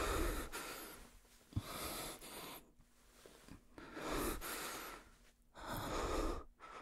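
A man breathing slowly and heavily close to the microphone: four long breaths about two seconds apart, with a soft click about a second and a half in.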